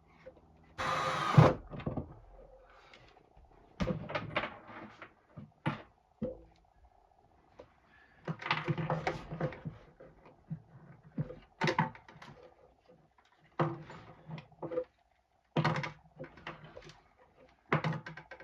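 Irregular knocks, clatter and scraping of hand work on a diesel heater's casing as it is put back together and screwed up, with a loud rasping clatter about a second in.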